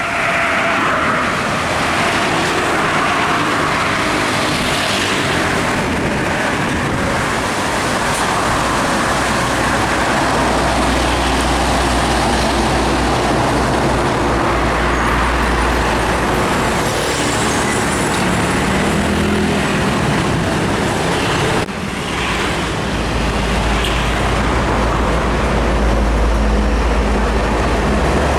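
Heavy trucks passing on a busy road: engines rumbling deep under steady tyre and traffic noise, the rumble swelling as each truck goes by, with a sudden brief dip about twenty-two seconds in.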